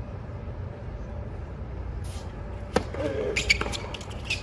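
Low steady rumble of a hushed stadium, then, just past the middle, a few sharp knocks of a tennis ball bounced on a hard court, with a brief voice among them.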